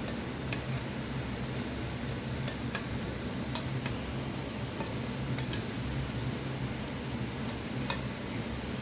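Chicken breasts sizzling steadily in oil in a frying pan as their own released juices cook off, with metal tongs clicking against the pan a number of times as the pieces are turned. A steady low hum runs underneath.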